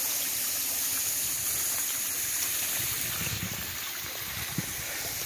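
Steady hiss of running water, with a few low rumbling bumps in the second half.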